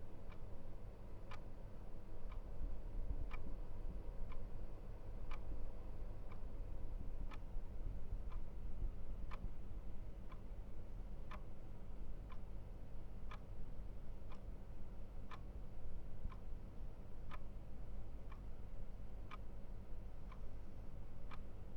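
Grandfather clock ticking steadily, about one tick a second, the ticks alternating slightly in strength as tick and tock, over a faint low hum.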